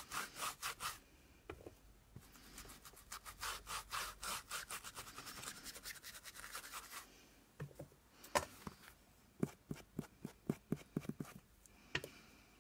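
Quick back-and-forth rubbing strokes on paper, several a second, with a short break about a second in, stopping about seven seconds in. After that come scattered light taps and handling knocks.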